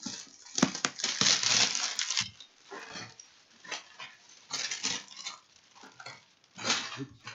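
Plastic shrink wrap crinkling and rustling in irregular bursts as it is pulled off a cardboard box.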